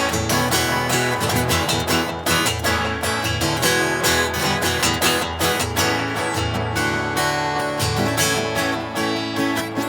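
Taylor GS5 acoustic guitar with a cedar top, strummed in a steady rhythm of chords, about four strums a second.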